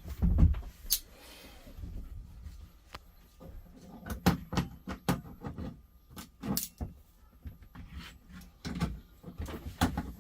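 Irregular clicks, knocks and small rattles of tools and bunk hardware being handled inside a truck cab, a dozen or more short hits spread over the whole stretch.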